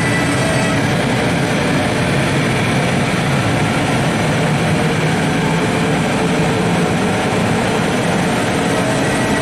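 Siemens ES 64 F4 electric locomotive rolling slowly past at close range, a loud steady rumble of wheels and running gear on the rails.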